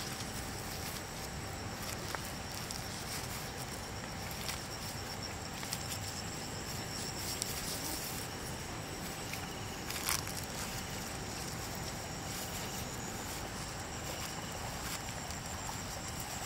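Evening insect chorus over flooded rice paddies: a steady high-pitched trilling. A few faint clicks are scattered through it, with a sharper one about ten seconds in.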